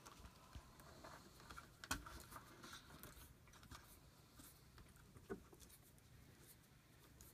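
Faint clicks and small handling sounds of wire strippers working the insulation off electrical wire ends, with a sharper click about two seconds in and another about five seconds in.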